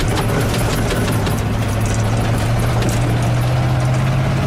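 1978 GMC truck's engine running steadily while driving through mud, heard from inside the cab, its note rising a little about three seconds in. Over it come many sharp ticks and knocks in the first couple of seconds, mud and debris striking the truck.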